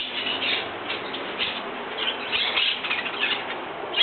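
Small birds chirping busily, many short high chirps overlapping one another.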